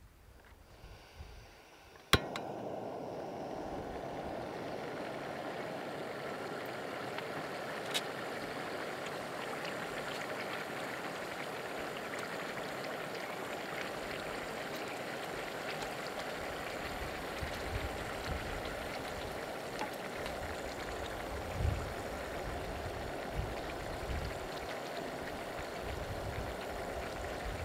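Olive oil for an ajillo simmering in a pan, a steady sizzle with small crackles and pops, which starts suddenly just after a sharp click about two seconds in.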